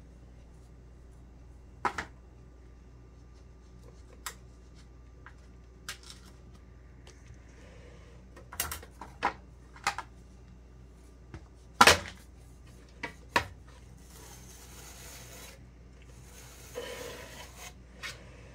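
Cake-decorating tools and containers being handled: scattered light clicks and knocks, the loudest about twelve seconds in, then a few seconds of soft rubbing and scraping near the end.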